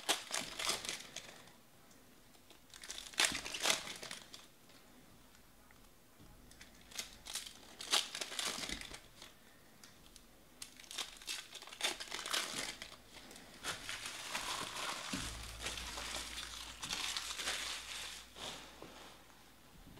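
Foil trading-card pack wrappers (2019 Panini Elite Extra Edition) being torn open and crinkled by hand, in repeated bursts of rustling with short quiet gaps, as the cards are pulled out and handled.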